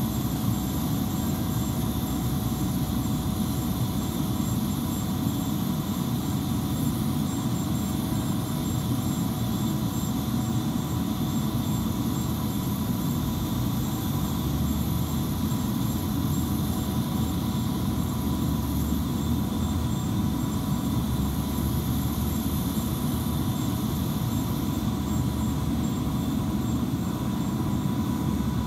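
Steady whine and low rumble from a parked Airbus A319's turbines, holding several even tones with no rise or fall.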